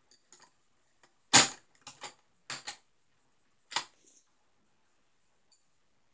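A handful of sharp knocks and clicks, the loudest about one and a half seconds in and the others spread over the next two and a half seconds.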